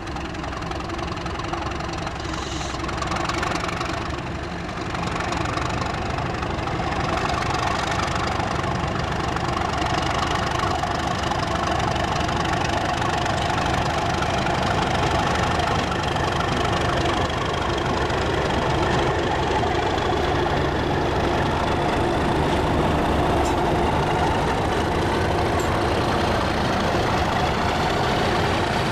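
English Electric Class 37 diesel locomotives working under power, their V12 engines running steadily and growing louder as they come closer. A high whine rises in pitch over the last several seconds.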